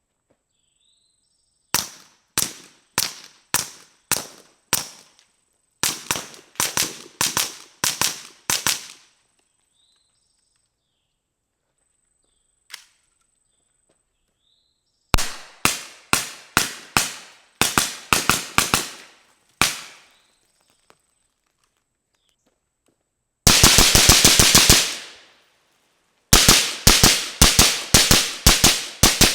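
Suppressed guns of several calibers firing, heard from downrange: strings of sharp single shots at varying pace, separated by pauses, with one faint lone shot. Late on comes one very rapid burst, followed by a last string of shots near the end.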